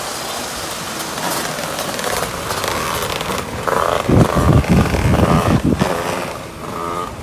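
A pack of outlaw karts' engines running together as they circle a dirt oval, with a louder stretch of low rumbling from about four to six seconds in.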